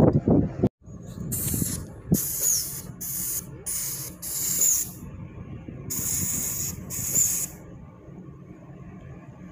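Paint spray gun hissing in a series of about seven short bursts, each under a second, as it is triggered on and off.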